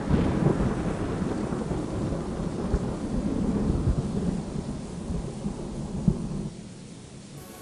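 Thunder rumbling over steady rain, slowly fading and dropping away near the end, with a couple of brief thumps.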